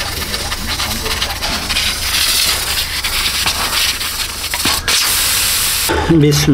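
Steam rushing out of an aluminium pressure cooker's vent with its whistle weight removed, releasing the pressure after cooking. The loud hiss builds about two seconds in and cuts off suddenly near the end, when a sheep bleats.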